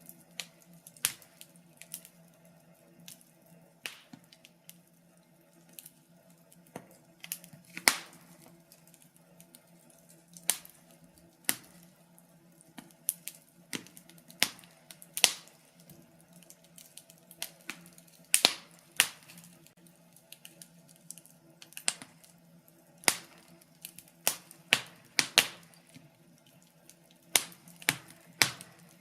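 Wood fire crackling, with sharp irregular pops of burning logs coming a few every couple of seconds over a faint steady hum.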